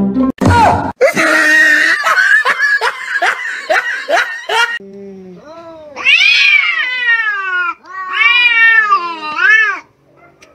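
Two cats caterwauling at each other in a standoff: two long, wavering yowls in the second half. Before them comes a harsh run of quick, repeated cries.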